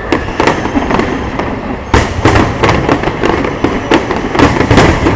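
Aerial fireworks display: a dense, continuous barrage of bangs in quick succession, with a burst of louder bangs about two seconds in.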